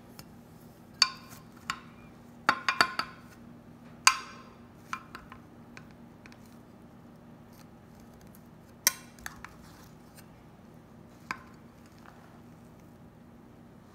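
Metal spatula clinking and scraping against a glass baking dish as it cuts through brownies: scattered sharp, ringing clinks, a quick cluster of them about two and a half seconds in and the loudest about four seconds in.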